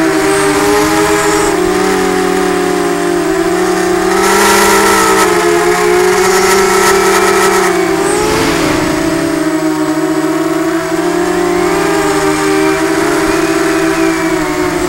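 Eachine Falcon 250 quadcopter's brushless motors and propellers whining in flight, heard from the camera on board. Several tones move up and down together with the throttle, climbing about four seconds in and dipping around eight seconds in, with brief rushes of air noise at those points.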